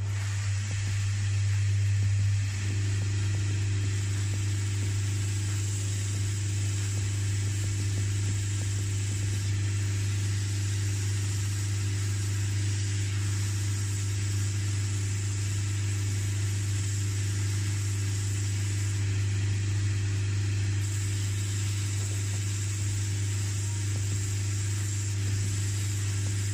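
A cobbler's shoe finishing machine running with a steady hum while a leather heel block is ground against its rough sanding band, cutting it at an angle to match the shoe's pitch.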